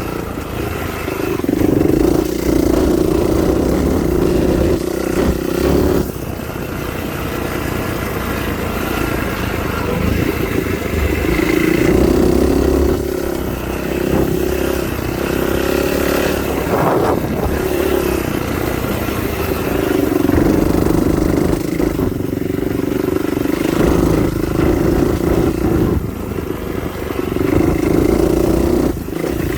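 A motor vehicle's engine running steadily as it drives along a dirt road, easing off and picking up again every several seconds.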